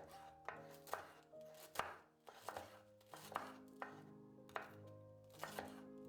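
A kitchen knife chopping food on a cutting board: about nine sharp, irregular strokes, over soft background music.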